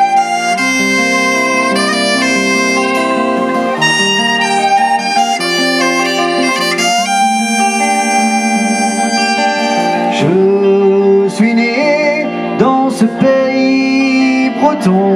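Live band playing an instrumental break of a Breton folk-rock song: violin and electric guitar carry long held melody notes over bass and drums. In the second half the lead notes slide and bend in pitch.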